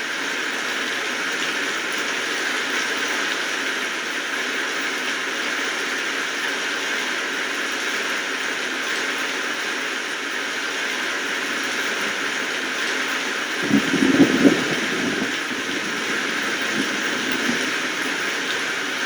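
Steady rainfall, an even hiss of drops. About two-thirds of the way through comes a short cluster of louder, duller thuds lasting about a second.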